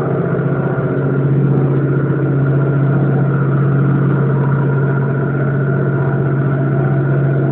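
Small river ferry boat's engine running steadily with the boat under way, a constant low hum that holds even throughout.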